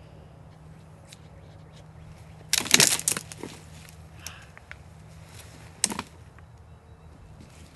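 A shot wild turkey beating its wings: a loud ragged burst of flapping about two and a half seconds in, and a shorter, sharper one near six seconds.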